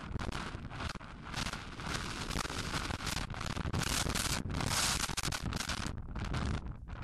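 Heavy wind buffeting and rubbing noise on the microphone of a camera worn by a rider at a gallop, a dense crackling roar that eases near the end.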